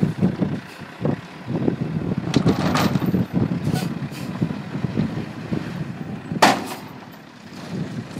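Dump truck tipping its raised, plastic-lined bed while a load of broken concrete chunks slides out and tumbles onto the pile, with continual rumbling and clattering. There is one sharp, loud noise about six and a half seconds in.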